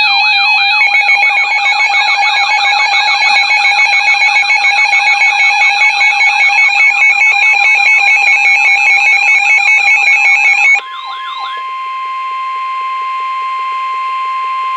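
Emergency alert sounds: several sirens wailing rapidly up and down at once over steady alert tones, loud. About eleven seconds in the sirens cut off and fade within a second, leaving one steady, unbroken alert tone of the kind that comes before a broadcast weather warning.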